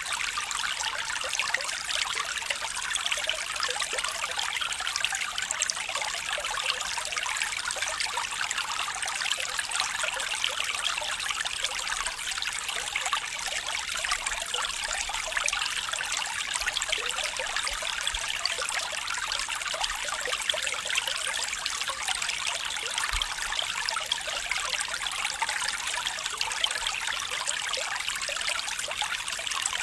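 Steady flowing, trickling water of a stream, an even rushing hiss with no pauses.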